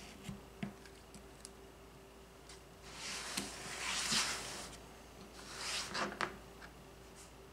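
A rotating quilting cutting mat being turned on the table twice, each turn a soft sliding rush, the second shorter. Before that come a couple of light clicks from the rotary cutter and acrylic rulers being handled.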